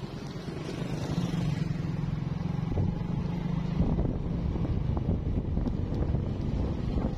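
Small motorcycle's engine pulling away and running steadily at riding speed, getting louder about a second in.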